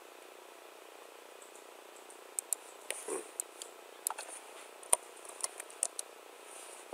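Computer keyboard keystrokes: about a dozen short, sharp clicks scattered irregularly, starting a little over two seconds in, over a faint steady hiss.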